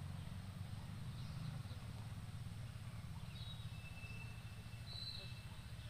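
Outdoor background sound: a steady low rumble with faint, thin bird whistles over it, one held note in the middle and a short higher call near the end.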